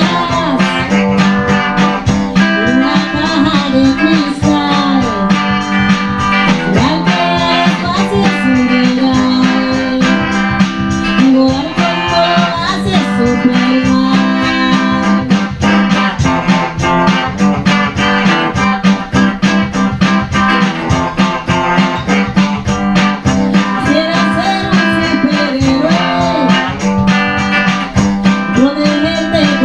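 Guitar music with a steady rhythm of quick plucked notes, with a voice singing at times.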